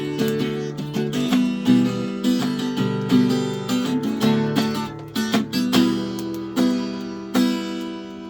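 Acoustic guitar being strummed and picked, its chords ringing on, spaced out more widely near the end.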